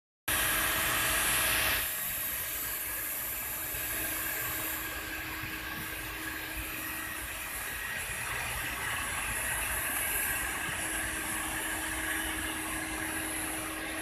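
Vacuum running steadily: a hiss of air drawn through a long hose and pole wand over a steady motor hum, a little louder for the first second and a half.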